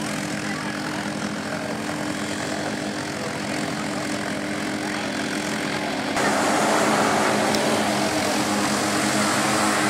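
Side-by-side UTV engines running hard as the machines drive through a flooded mud pit, with water spray hissing over the engine drone. About six seconds in the sound becomes suddenly louder, with more rushing spray.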